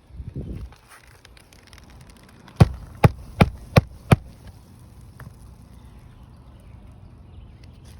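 Hammer driving roofing nails into a replacement asphalt shingle: five quick, evenly spaced strikes a little after two seconds in, with rustling of shingles being handled around them.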